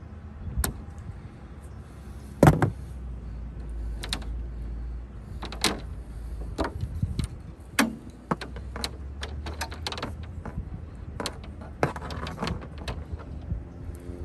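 Scattered sharp clicks and knocks of solar-panel cabling being handled and routed on a rooftop panel, the loudest about two and a half seconds in, over a steady low rumble.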